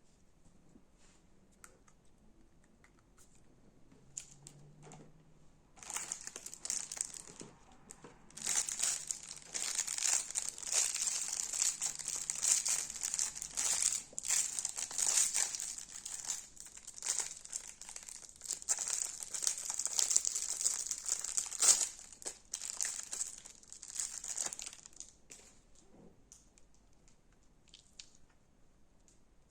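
Crunchy slime being worked by hand, giving off a dense, continuous crackling and popping that starts about six seconds in and stops a few seconds before the end, with only faint scattered clicks around it.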